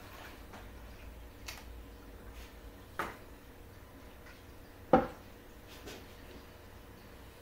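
A few separate hard-plastic knocks and clacks as a 3D-printed beehive frame full of honeycomb is lifted from the hive and a plastic bowl is moved in beside it, the loudest knock about five seconds in.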